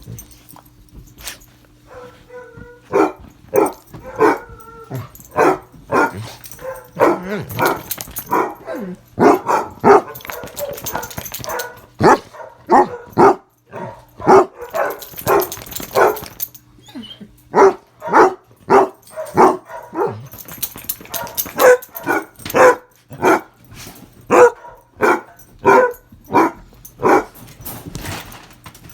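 A dog barking over and over, about two sharp barks a second with a few short pauses.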